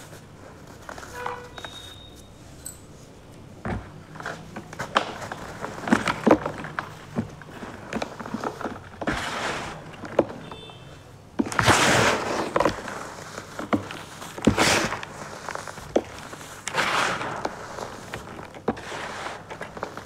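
Dry sand-cement chunks being crushed and crumbled by hand: gritty crunching and crackling with many small sharp snaps, loudest a little past halfway.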